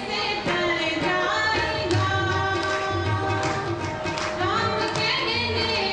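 Devotional song: a voice sings gliding and held notes over a steady drum rhythm.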